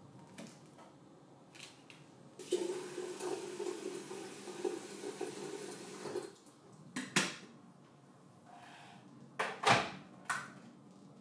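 Tap water running into a stainless steel electric kettle for about four seconds, with a steady tone as it fills. Then a few sharp clunks as the kettle is handled and set down on its base, the loudest near the end.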